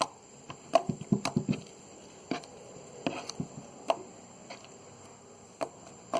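Slime being squeezed and worked in the hands, making sharp clicks and pops: a quick run of them about a second in, then single clicks every second or so.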